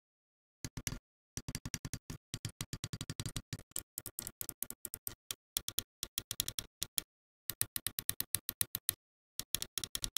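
Buttons of a Cougar DualBlader gaming mouse, the main switches and the extra side buttons, clicking in quick runs of several sharp clicks a second, with brief pauses between runs.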